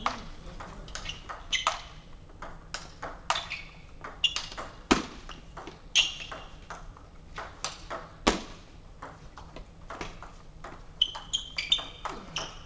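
Table tennis rally: the celluloid ball clicking off the table and the players' rubber-faced bats, several sharp hits a second in an uneven rhythm, a few of them louder than the rest.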